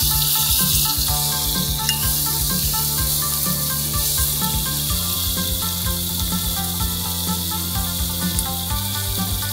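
Beef steak searing in hot oil in a frying pan, a steady high sizzle over high heat, with soft background music underneath.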